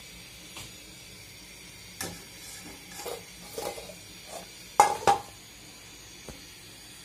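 Metal kitchenware knocking and clanking against a stainless steel bowl and wok: a run of sharp knocks, the loudest pair with a brief metallic ring about five seconds in. Under them is a faint steady sizzle of frying oil.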